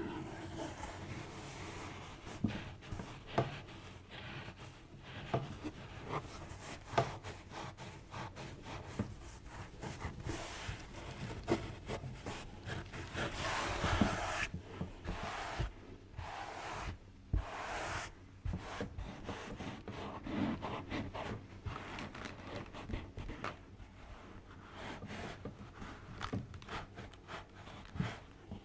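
Hands rubbing and massaging close to the microphone, with many small sharp clicks scattered throughout and a louder stretch of rubbing about halfway through.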